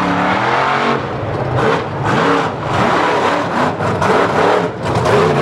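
Mud bog truck's engine revving hard, its pitch rising and falling again and again as the driver works the throttle through the pit.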